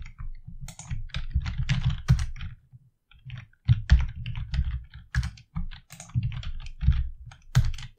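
Typing on a computer keyboard: a quick, irregular run of keystrokes with a short pause about three seconds in.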